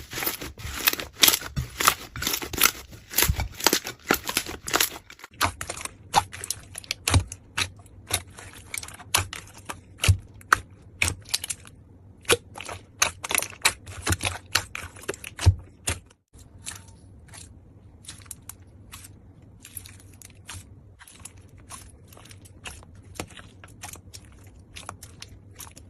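Slime being squeezed and pressed by hand, giving rapid sharp clicks, crackles and pops, in a few back-to-back clips. The clicking is quieter and sparser from about two thirds of the way through.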